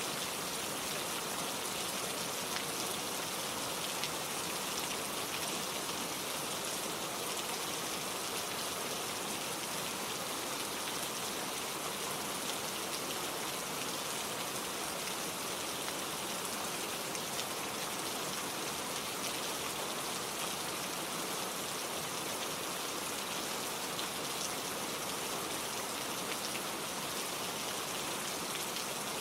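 Steady, gentle rain falling, a continuous even patter of drops with no thunder.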